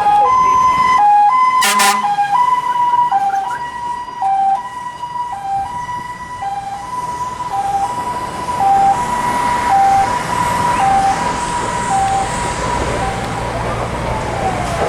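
Emergency vehicle siren in a two-tone hi-lo pattern, switching between a higher and a lower note about once a second, with a brief sharp sound about two seconds in.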